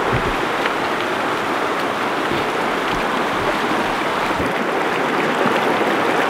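Fast, shallow river rushing over rocks: a steady, loud rush of water.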